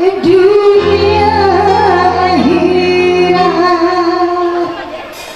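Music: a woman singing a melody over instrumental accompaniment, with a held low bass note through the middle of it.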